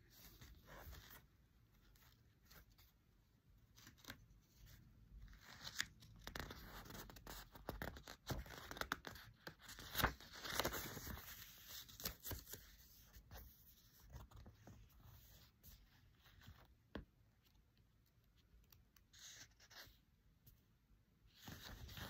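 A parcel being unpacked by hand: packaging tearing, rustling and scraping on and off, busiest in the middle stretch, with a few sharp clicks.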